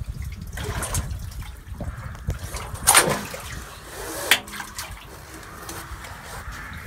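A 400 kg neodymium fishing magnet on a rope knocks sharply twice inside a stone well, about a second and a half apart, each knock ringing briefly in the shaft. It is then lowered into the well water with a soft wash of water.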